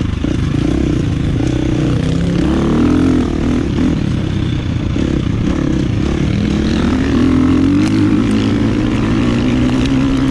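KTM dirt bike's single-cylinder four-stroke engine under way on the trail, its revs rising and falling repeatedly as the throttle is worked through the gears.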